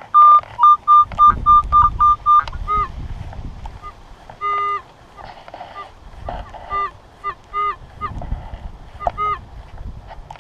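Minelab CTX 3030 metal detector beeping as the coil passes over a target: a quick run of about seven short, loud beeps at one pitch, then scattered short tones, some lower, some with a dropping tail. The detectorist reads the signal as another wheat cent.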